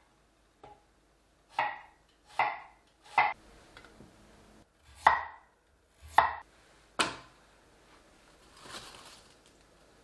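Kitchen items being handled: about six separate sharp knocks at irregular intervals, each with a brief ring, followed by a softer rustle near the end.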